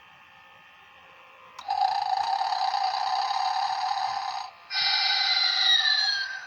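Animated snoring Santa toy playing its snore through a small speaker. About a second and a half in there is a click, then a long raspy inhaled snore. After a brief pause comes a whistling exhale whose pitch slides.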